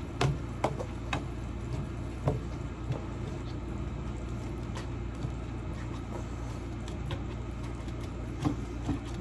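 A few sharp knocks and clicks over a steady low hum, most of them in the first few seconds and two more near the end.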